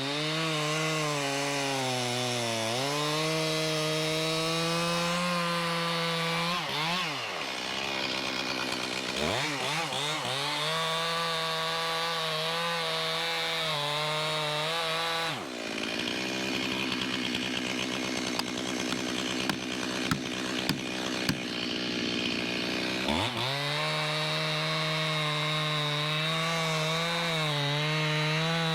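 Stihl gas chainsaw running at high revs while cutting through a red oak log. The engine pitch sags and recovers a few times and runs lower and rougher for several seconds in the middle, as it bogs under load in the cut.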